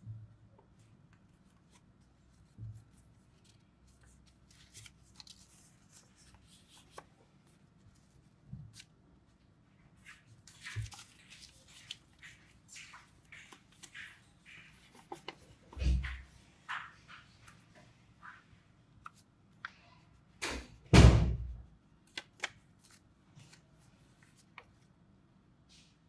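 Square of origami paper being folded and creased by hand: scattered rustles, crinkles and light taps of paper against paper and the table. Two louder, longer rubs stand out, one a little past the middle and the loudest, about a second long, near the end.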